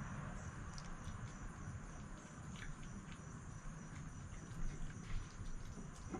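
Red fox eating from a bowl: irregular chewing and crunching of its food, with small clicks, a couple of them louder about four and five seconds in.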